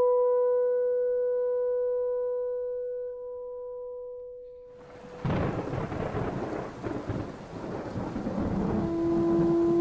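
A sustained low drone note from the score fades away, then about five seconds in a clap of thunder breaks into rumbling over steady rain. Near the end a new, lower drone note starts under the storm.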